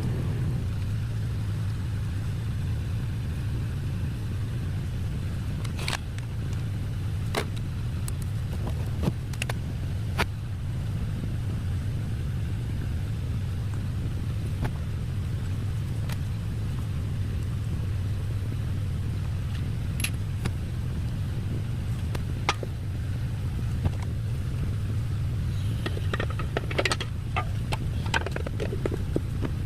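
A small engine running steadily with a low rumble, with scattered sharp clicks and a cluster of clicks and rattles near the end.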